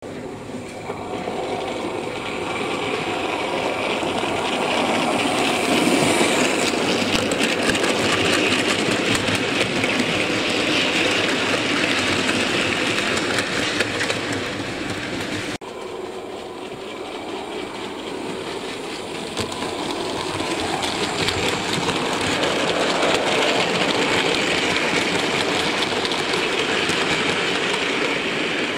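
OO gauge Bachmann Fowler Class 3F model locomotive and its freight wagons rolling along the layout's track, a steady running noise that grows louder over the first few seconds. It cuts off abruptly about halfway through, then builds up again as the train comes near.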